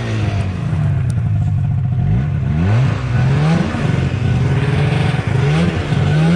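Snowmobile engine running, revved up several times, each rev rising in pitch and falling back, as the sled sits stuck in deep snow.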